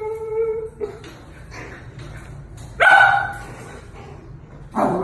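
Small dog calling: a steady whine lasting about a second at the start, then a louder short bark about three seconds in, and another call rising near the end.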